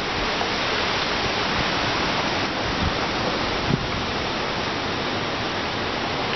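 Steady rush of tropical-storm wind and rain.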